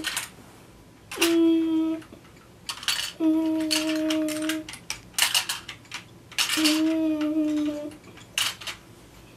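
A child humming three held notes at one steady pitch, each about a second long, like a pretend engine noise, with clicks and clacks of plastic toy vehicles being handled in between.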